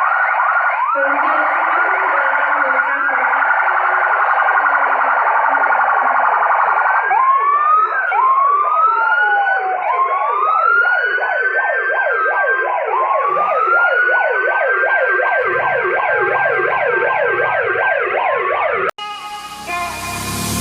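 Several vehicle sirens sound together: a fast, repeating yelp throughout, joined from about seven seconds in by slower wails that rise and fall. They cut off abruptly near the end, and music begins.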